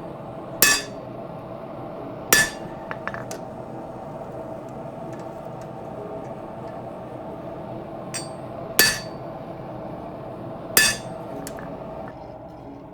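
Hammer striking a fullering tool set on a leaf-spring steel sword blade, four separate blows with a short metallic ring, a few faint clinks between them. These are light, careful blows for starting the fuller.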